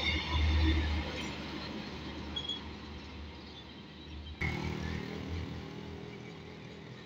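A heavy tanker truck's diesel engine passing close by, a low rumble loudest in the first second and then fading as it moves away. About four seconds in the sound cuts abruptly to a steadier low engine hum of road traffic.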